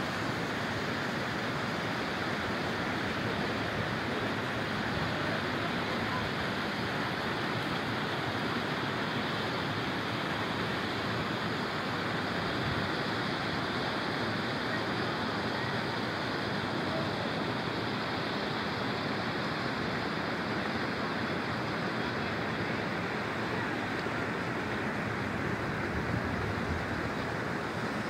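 A rocky mountain creek rushing over boulders: a steady, even rush of water with no let-up.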